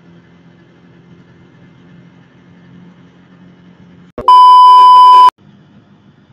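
Faint low hum of the Yamaha Vixion motorcycle riding along, then about four seconds in a sudden, very loud, steady test-tone bleep lasting about a second, the tone that goes with a TV colour-bars screen, before the faint riding hum returns.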